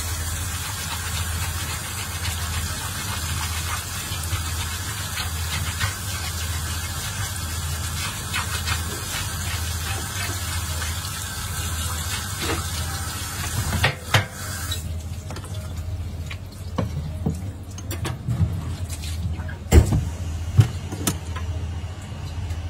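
Tap water running over a fish being rinsed and rubbed by hand in a stainless steel sink, until the water stops about two-thirds of the way through. Then scattered knocks and thumps as the wet fish is handled and wiped on the cutting board, the loudest near the end, over a steady low hum.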